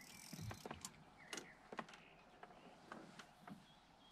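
Faint handling noises: scattered light clicks and small knocks over a quiet background, with a brief hiss at the start and a sharper click at the very end.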